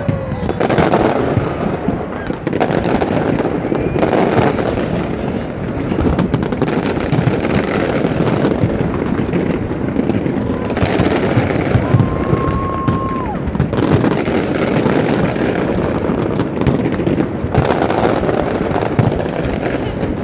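Fireworks display: aerial shells bursting again and again, every second or few, over a continuous rumble and crackle. A brief high whistle comes about twelve seconds in.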